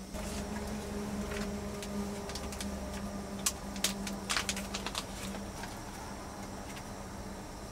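Portable gas stove burner hissing steadily with a low hum under a titanium mug of water. About halfway through, a plastic pouch crinkles and clicks sharply as it is handled and opened.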